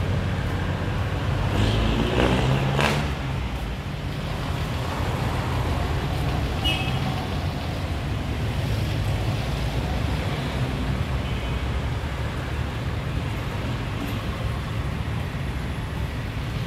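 Mixed city street traffic of cars and motor tricycles: a steady low rumble of engines, with one engine revving up in rising pitch about two seconds in as a vehicle pulls away.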